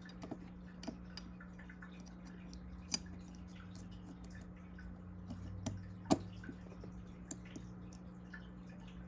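Small metal clicks and taps of a button-lock folding knife's parts being handled and fitted during reassembly, with a sharper click about three seconds in and the loudest about six seconds in, over a steady low hum.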